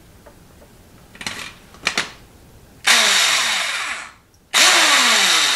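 Tecumseh 110 V electric starter motor, running free off the engine, switched on twice for about a second each time: a loud, high whir whose lower hum slides down in pitch during each run. Two faint clicks come before the first run. The motor now turns after being taken apart and reassembled.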